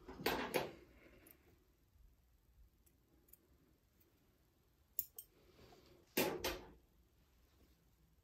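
Gloved hands handling a thin strip of Plastigauge and its paper sleeve: short crisp clicks and rustles, a pair just after the start, a single one about five seconds in, and another pair just after six seconds.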